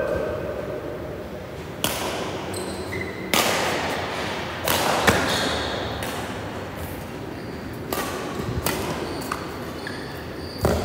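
Badminton rally: racket strings striking a shuttlecock in a string of sharp hits a second or more apart, each ringing on in the large hall, with sneakers squeaking and scuffing on the court mat between shots.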